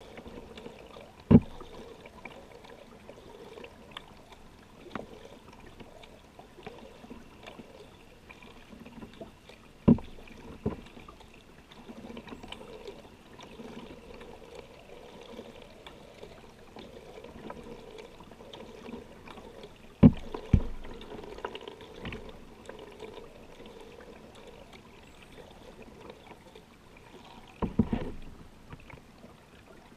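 Kayak being paddled on calm water: water trickling and dripping off the paddle beside the hull, with about six sharp knocks on the boat spread through, some in close pairs.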